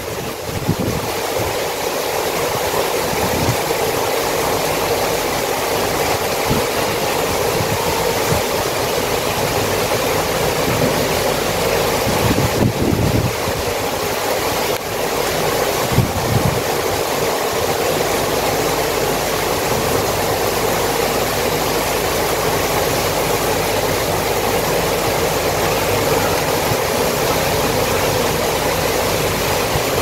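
Heavy rain pouring steadily, a dense even hiss of rain falling on leaves and the street.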